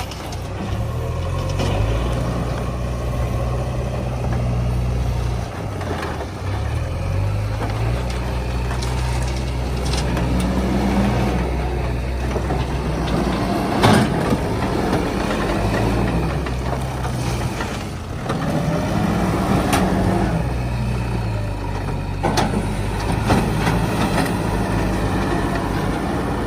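Diesel engine of earthmoving machinery running under load, its speed dropping and rising again several times as the machine works, with a few sharp knocks, the loudest about fourteen seconds in.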